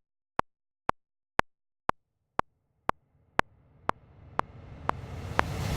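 Sound-effect ticking: short sharp ticks, two a second, evenly spaced, with a rumbling hiss swelling up under them from about two seconds in and growing steadily louder.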